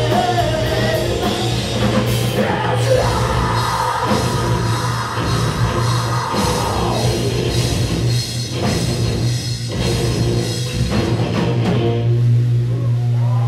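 Live post-hardcore band playing: electric guitars, bass and drum kit with a singer's vocals over a steady low note. Near the end a chord is held and left to ring.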